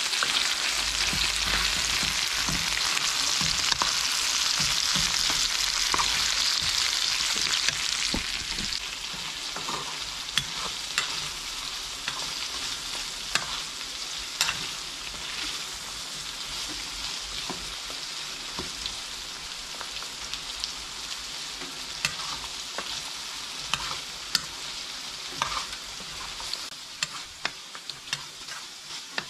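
Chicken pieces, peppers and onions sizzling in a frying pan while a utensil stirs them, clicking against the pan now and then. The sizzle is loudest for about the first eight seconds, then eases to a quieter steady hiss.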